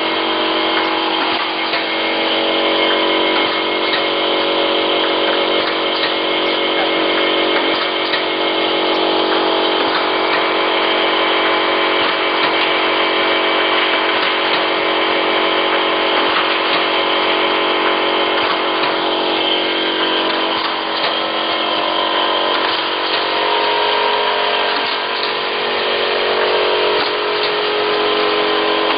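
Automatic bottle-capping line for small plastic dropper bottles running: a steady mechanical hum from its motors and vibratory bowl feeder, with light clicking from the bottles and turntable.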